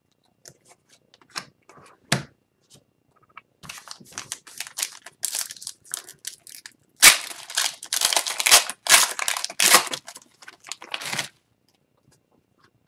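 Upper Deck hockey card pack wrapper being opened: a few light taps and clicks first, then several seconds of tearing and crinkling of the wrapper, loudest in the middle, which stops about a second and a half before the end.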